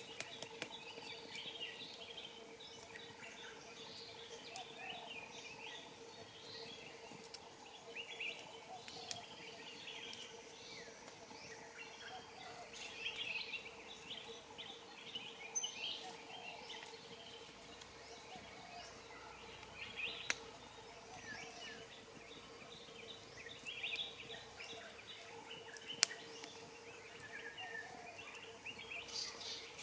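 Wild birds chirping and calling in dry woodland, with a steady hum underneath and a few sharp clicks, one about twenty seconds in and a louder one a few seconds before the end.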